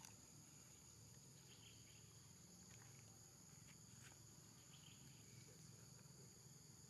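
Faint, steady high-pitched drone of insects, with a few soft ticks scattered through it.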